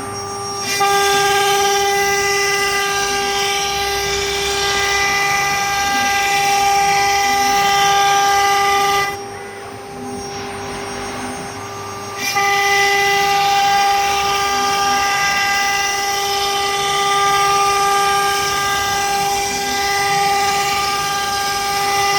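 CNC wood router spindle running with a steady high whine and a faint hiss over it. It grows louder under a second in, falls back for about three seconds around the middle, then comes back up.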